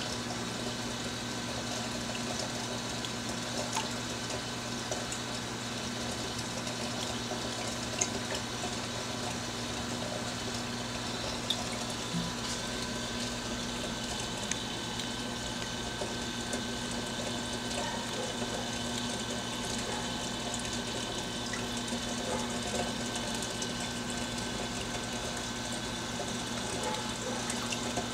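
Reef aquarium equipment running steadily: the hum of circulation pumps over a constant wash of moving, splashing water, with a few faint ticks.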